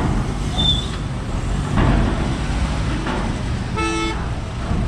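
Car and van engines running at low speed as vehicles drive off a car ferry, with one short car horn toot about four seconds in.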